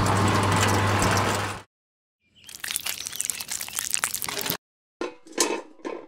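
A steady hum that stops abruptly after about a second and a half, followed by gritty crunching and scraping of a sand-and-cement concrete mix in short, separate bursts.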